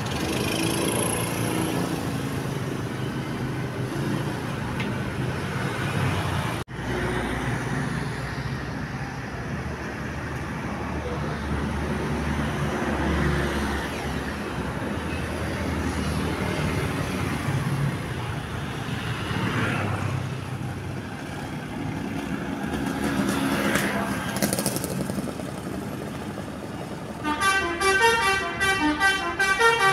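Roadside traffic noise with voices. About 27 seconds in, a bus's Basuri V3 telolet horn starts up loudly, playing its rapid multi-note melody.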